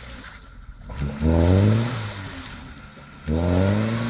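Lada Niva's engine revved twice in short bursts about two seconds apart, the pitch climbing in each, while the car is bogged in a ditch.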